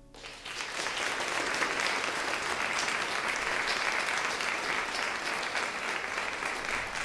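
Audience applauding, starting suddenly and building within about a second to steady clapping.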